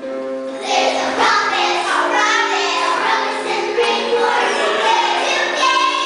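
A group of young children singing a song together, getting louder about a second in.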